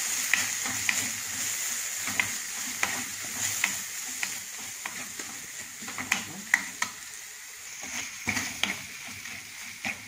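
Onion-tomato masala with freshly added spice powders sizzling in oil in a pan, stirred with a wooden spatula that makes irregular sharp clicks and scrapes against the pan. It is at the stage of frying until the raw smell of the spices cooks off.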